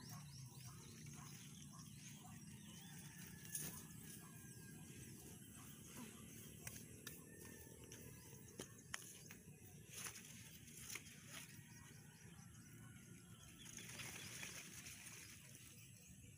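Faint rustling of leaves with scattered small snaps and clicks as pechay (bok choy) plants are pulled from the soil and handled; a short burst of louder rustling near the end.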